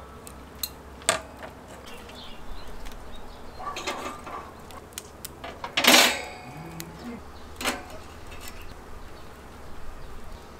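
Metal barbecue tongs clicking and clinking against a steel tray and the wire grate of a small charcoal grill as pieces of lamb rack are lifted and set down. There are a handful of sharp clicks, and the loudest, ringing briefly, comes about six seconds in.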